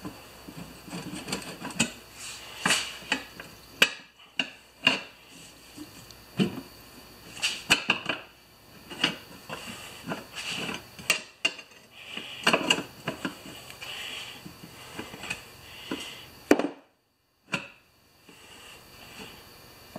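Tire iron working a 15x6 yard tractor tire's bead onto a small steel rim clamped in a vise: irregular metal clanks and knocks as the bar is levered and shifted. The sound drops out for about a second near the end.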